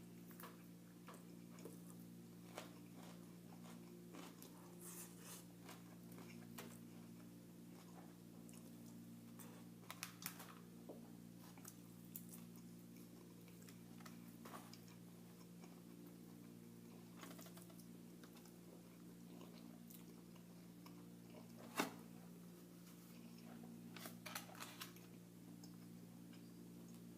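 A person chewing and crunching Panda Express food close to the microphone, in short bursts with scattered clicks, one sharp click loudest a few seconds before the end. A steady low hum runs underneath.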